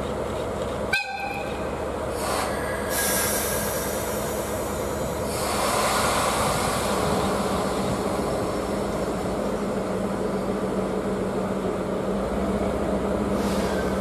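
Stationary railway locomotives: a steady engine hum throughout, a sharp click with a brief tone about a second in, and bursts of hissing around three seconds and again around six seconds.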